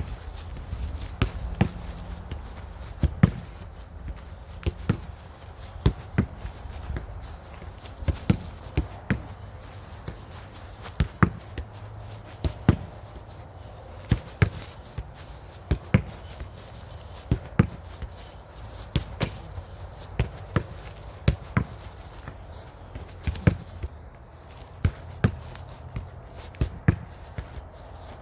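A soccer ball being struck and touched repeatedly by the feet, switched from leg to leg: a string of sharp thuds about one to two a second, uneven in spacing, with the player's footsteps on the ground in between.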